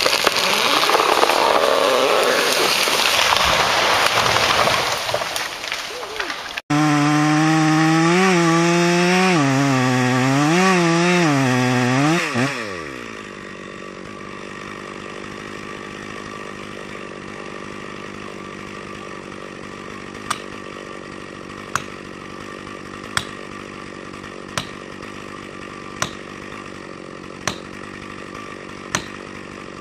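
Chainsaw cutting, loud and noisy at first. After an abrupt cut the saw's two-stroke engine runs at high speed, its pitch wavering up and down under load for about six seconds, then winding down. After that a quieter steady background remains, with a sharp tick about every second and a half.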